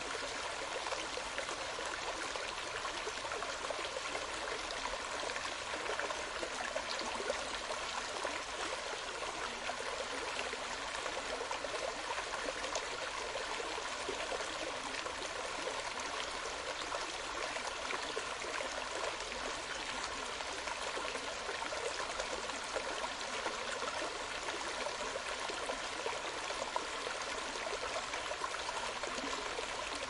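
Steady rushing and trickling of a flowing stream, running on evenly without a break.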